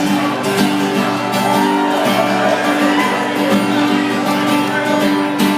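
Live acoustic guitar music, chords strummed in a steady rhythm.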